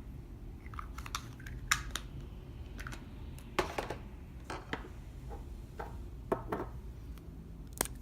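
Clear slime being mixed and worked by hand, giving irregular sticky clicks, pops and crackles.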